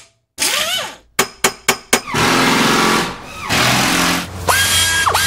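Intro sound effects made of tool sounds: a rising swish, then about five sharp knocks in quick succession, then a power tool's motor running in two spells, ending on a steady high whine.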